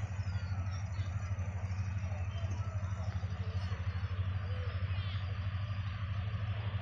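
Diesel locomotive engine idling with a steady low throb, under faint distant voices of people and children.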